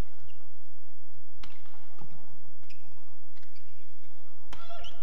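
Badminton rackets striking the shuttlecock in a rally: three sharp smacks, about a second and a half in, at two seconds and about four and a half seconds in, with court shoes squeaking on the floor, the loudest squeal right after the last hit.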